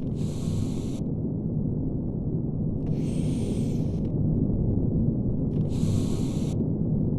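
Electric arc furnace running with a steady rumbling roar, joined by a high hiss lasting about a second that repeats roughly every three seconds.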